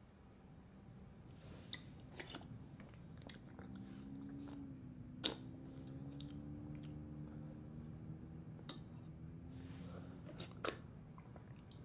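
A spoon clinking against a bowl and chewing as someone eats, with a few sharp clinks, the loudest about five seconds in and near the end. A low steady hum lies underneath.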